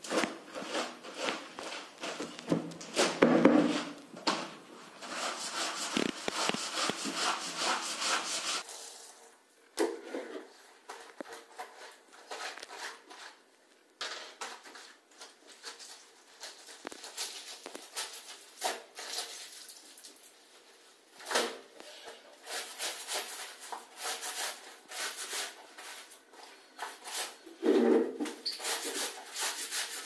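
Soapy wet clothes being scrubbed by hand against a tiled floor: irregular short, rough rubbing strokes with brief pauses.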